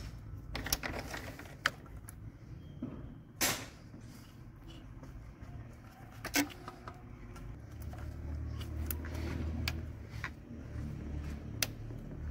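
Plastic electrical connectors being pushed by hand onto common-rail diesel injectors, giving several sharp clicks spread over the stretch, with a low hum swelling about eight seconds in and fading again.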